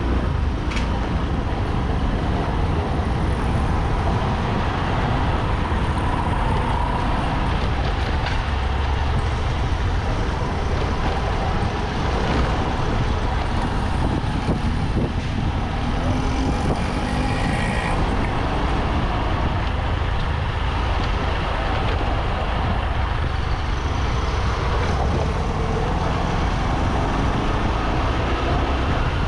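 Motorcycle riding along a street: its engine running steadily under a low rumble of wind on the microphone, with surrounding road traffic.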